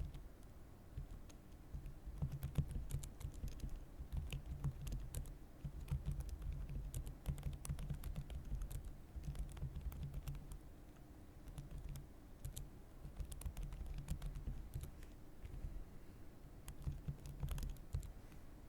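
Typing on a computer keyboard: a steady stream of irregular keystroke clicks, with a few short pauses.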